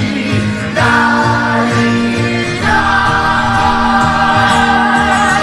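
Stage-show music with a group of voices singing over instrumental backing, holding long notes that change about one and three seconds in.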